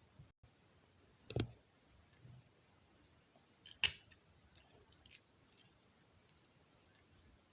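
Plastic LEGO bricks being handled and snapped together: a sharp click about a second and a half in, a louder one near four seconds, then a few light clicks.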